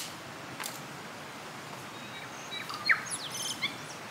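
A wild bird calling in a quick run of high chirps and short gliding whistles, from about two and a half seconds in, over a steady outdoor hiss. Under a second in there is one sharp snap of a stick.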